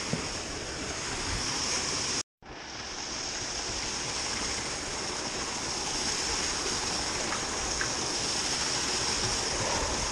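Steady rushing of water at a canal lock, an even noise with no rhythm. It cuts out completely for a moment about two seconds in and fades back up.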